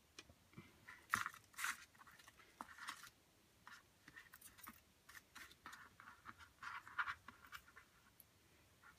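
Small scrapbook embellishments rattling and clicking in a clear plastic storage box as it is handled and rummaged through: an irregular run of light clicks, taps and rustles.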